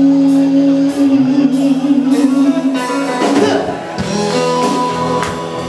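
A live rock-and-roll band playing, guitar to the fore, with a long held note through the first half.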